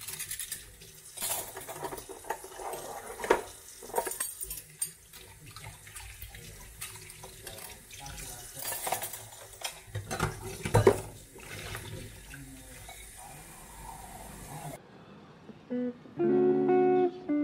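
Kitchen tap running over hands and metal cutlery in a stainless steel sink, with sharp clinks of spoons and forks as they are rinsed. The water stops about fifteen seconds in, and acoustic guitar music begins near the end.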